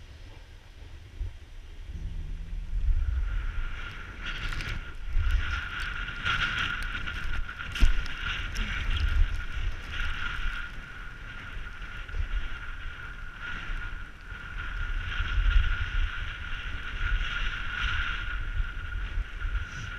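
Snowboard sliding over snow: a hiss that sets in a few seconds in and swells and fades with the turns, under gusty wind rumble on the microphone. A sharp knock about eight seconds in.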